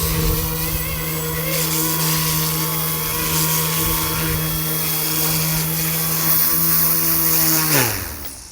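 Brushless rotor motors of a small Eachine E187S RC helicopter (a 1/32 scale Bell AH-1 Cobra) running with a steady whine while it comes in to land. Near the end the pitch drops quickly and the sound dies away as the motors spool down on touchdown.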